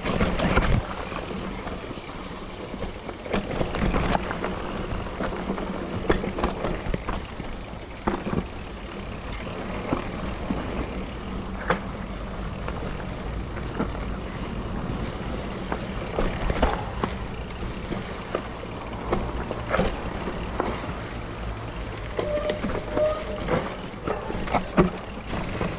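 Mountain bike riding down a dry dirt trail: a steady low rumble of the tyres rolling, with frequent clicks and knocks as the bike rattles over bumps.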